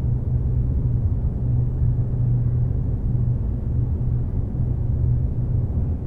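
A steady low rumble with a droning hum, unchanging throughout.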